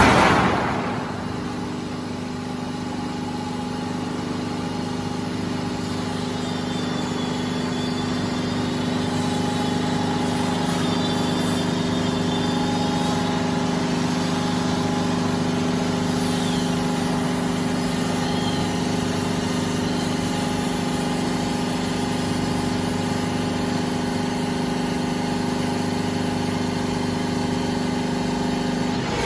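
Silo corrugated sheet roll forming machine running steadily, a continuous hum with several steady tones as the steel sheet is fed through the forming rollers. A loud noise is dying away in the first second, and faint high squeaks waver in the middle.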